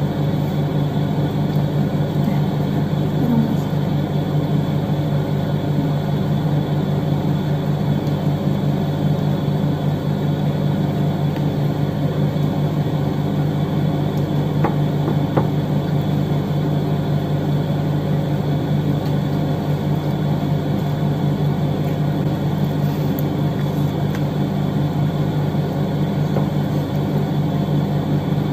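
Steady machine hum at an even level, with a couple of faint clicks about halfway through.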